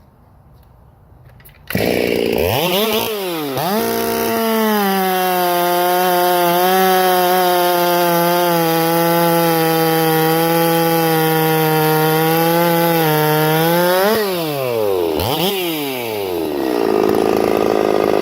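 Ported Stihl MS 460 two-stroke chainsaw, fitted with a Husqvarna 272 piston, comes in abruptly about two seconds in, is blipped up and down, then held at full throttle at a steady high pitch for about ten seconds. Near the end the revs drop, swoop up and down again, and the sound cuts off suddenly.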